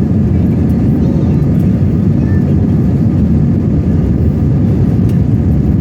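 Steady, loud low rumble of a Scoot Airbus airliner's engines and airflow, heard as unchanging noise with no rise or fall.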